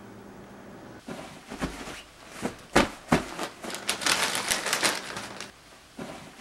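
A bag crinkling and rustling as it is handled and opened, with a couple of sharp knocks about three seconds in.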